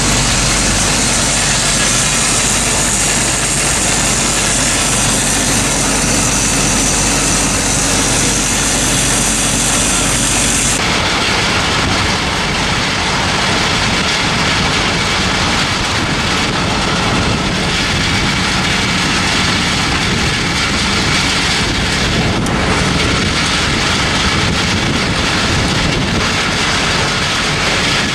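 Hydroseeder's engine and slurry pump running steadily, a loud, even machine noise. The sound changes abruptly in character about eleven seconds in, losing a strong high hiss.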